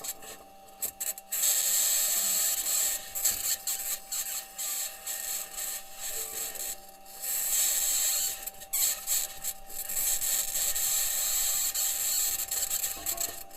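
Perseverance rover driving on Mars, heard through its onboard microphone: a harsh scratchy rasp that stops and starts every second or so, over a steady faint tone.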